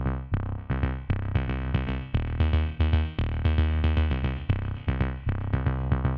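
Electronic music with a steady drum-machine beat, synthesizer notes and a strong bass.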